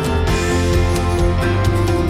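Background music led by strummed guitar, with a steady beat and bass.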